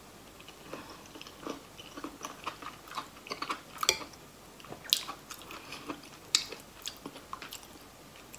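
A person chewing a mouthful of mushroom curry, faint, with soft irregular mouth clicks and smacks. A few sharper clicks come as a metal spoon dips into the ceramic bowl.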